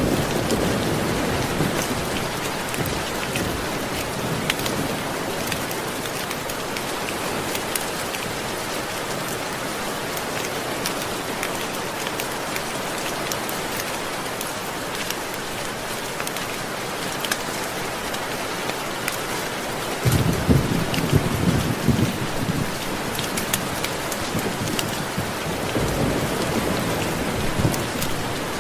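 Steady heavy rain with scattered sharp ticks, and rolling thunder swelling at the very start, again about two-thirds of the way through, and once more near the end.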